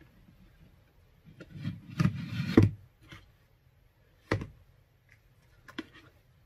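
A plastic container being handled: a rubbing, sliding sound about two seconds in that ends in a knock, then a single sharp knock a little after four seconds in and a couple of faint clicks near the end.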